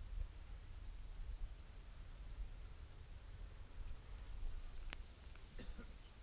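Faint bird chirps, short high calls scattered through, with a quick run of four or five about three seconds in, over a low rumble of wind on the microphone. A single sharp click about five seconds in.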